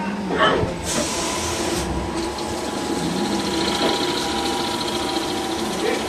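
CNC lathe running, a steady machine whine and hum with coolant spraying; a hiss lasting about a second starts about a second in.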